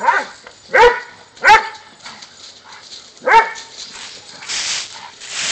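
A dog barking four short, sharp single barks, the first three about a second apart and the last a couple of seconds later. Near the end comes a rush of rustling as dogs run through dry fallen leaves.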